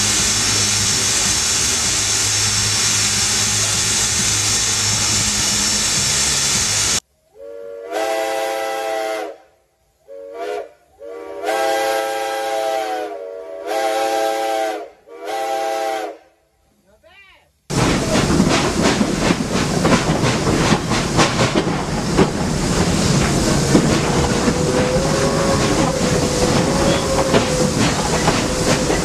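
Ex-Pennsylvania Railroad 0-6-0 steam locomotive No. 643 hissing steam, then its Reading six-chime whistle blown by hand in six blasts: one long, two short, then three longer, each a chord of several notes. After about 17 seconds the locomotive's steam hiss and exhaust come back loud and steady.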